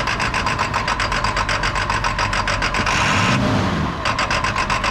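School bus diesel engine running at idle with a fast, even clatter. About three seconds in there is a brief rush of hiss.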